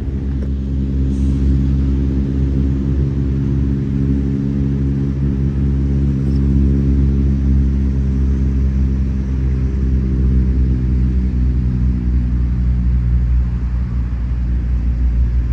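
A steady, low engine hum at an unchanging idle pitch, ending abruptly.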